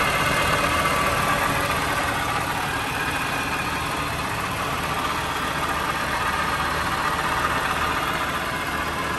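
Land Rover Series IIa's 2.25-litre four-cylinder petrol engine idling steadily while warm. It sits at a fast idle because the hand throttle is set a little too high.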